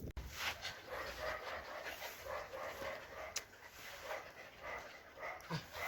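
A dog whining and whimpering softly in a series of short, high-pitched cries.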